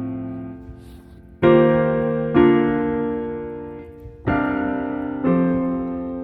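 Background music: slow solo piano, sustained chords struck about every second and left to ring and fade.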